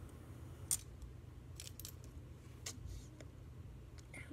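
A few short, sharp plastic clicks and taps from mechanical pencils being picked up and handled, the loudest about three-quarters of a second in.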